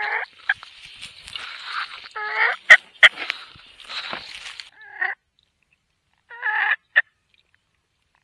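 Wild turkey gobblers gobbling: about four rattling gobbles a second or two apart. Two loud, sharp clicks come near the middle, over a light hiss in the first half.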